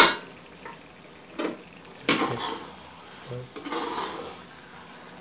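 Metal spoon clanking and scraping against a metal cooking pan while stirring: a loud clank right at the start, then further knocks and scrapes about two seconds in and again near four seconds.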